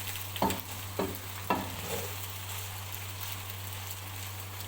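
Spaghetti and chicken frying in a pan with a steady sizzling hiss, while a utensil stirs them and knocks against the pan three times in the first second and a half.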